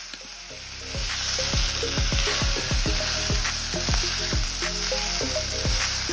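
Vegetables sizzling as they stir-fry in a hot wok, stirred and tossed with a wooden spatula, over background music with a steady beat.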